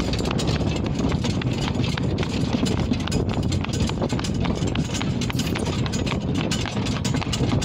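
A horse's hooves clip-clopping on asphalt as it pulls a cart, over a steady low rumble and rattle of the cart on the road.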